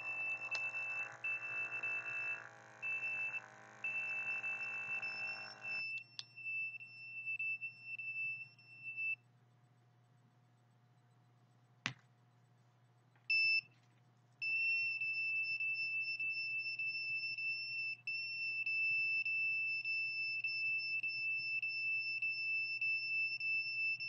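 High-pitched electronic beeper of a small handheld device sounding a steady tone. It sounds in stretches with short breaks for the first several seconds, falls silent, gives one short beep, then holds continuously for the last ten seconds or so. A lower humming tone sounds with it during the first six seconds.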